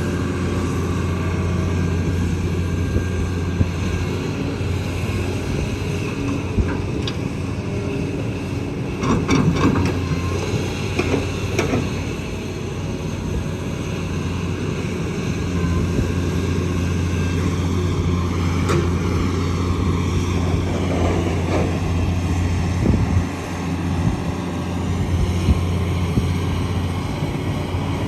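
Kobelco excavator's diesel engine running steadily, with a cluster of sharp metallic knocks and clanks about a third of the way in and a few single knocks later.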